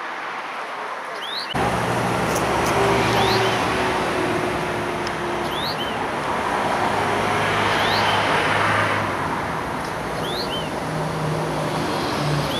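Road traffic noise, a steady rumble that comes in suddenly about a second and a half in. Over it, a small songbird repeats a short rising call, about every one and a half to two seconds.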